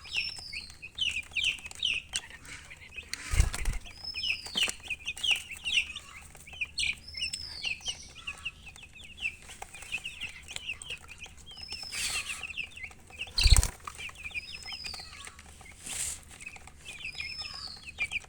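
Baby chicks peeping rapidly and continuously, with a louder rising-and-falling peep every few seconds. Two dull thumps come about three seconds in and again about ten seconds later.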